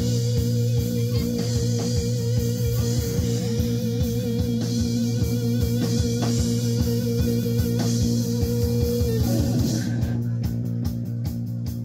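Live rock band music with guitar, bass and drums, with a long held wavering note over a steady beat. About nine seconds in the held note slides down and the music begins to fade out.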